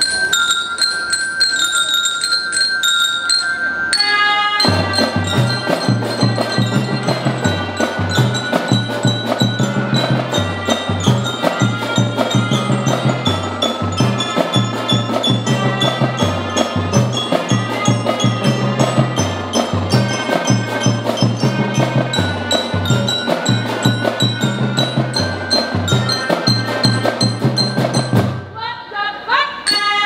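Melodica marching band with mallet keyboard percussion playing: a held chord for the first few seconds, then a fast rhythmic passage of struck bell-like notes over a repeating bass line. Near the end the music breaks off briefly and comes back with a quick rising run of notes.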